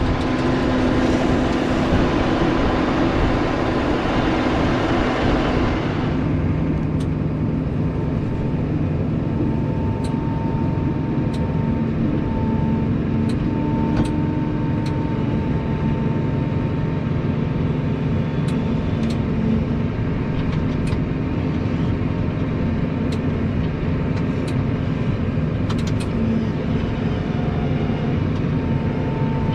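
Engine of farm machinery running steadily with a low hum. A loud hiss over it stops abruptly about six seconds in, and there are a few light clicks.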